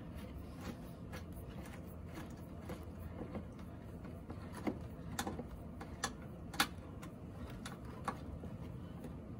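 Light metallic clicks and ticks, about a dozen spaced irregularly, as a bolt by the headlight is hand-tightened with a small wrench, over a faint low hum.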